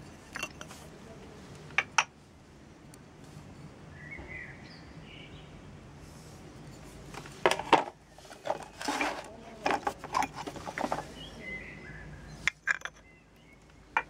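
Hard cast-resin orgonite pieces knocking and clicking as they are picked up, handled and set down in a cardboard box: two clicks about two seconds in, a busier run of knocks and rattles from about seven to eleven seconds, and a few more near the end.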